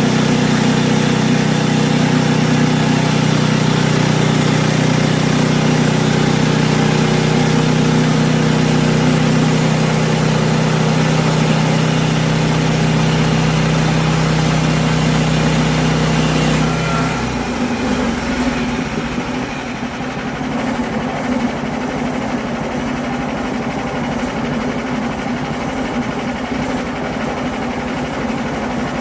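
Sawmill engine running steadily with an even hum. About two-thirds of the way through the sound changes: the low steady tones drop away and it goes on a little quieter and rougher.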